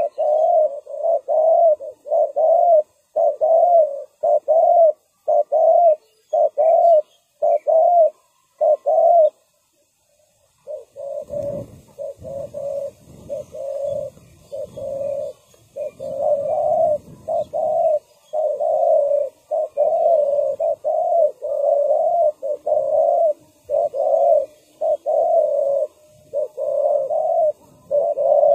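Spotted doves cooing, a long run of short, repeated coos that breaks off for about a second and then carries on. For several seconds after the break a low rumble sits under the coos.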